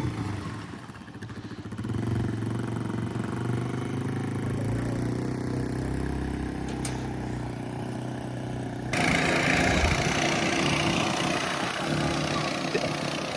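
Small engine running steadily, dipping briefly about a second in; about nine seconds in it gives way abruptly to a louder, noisier engine sound.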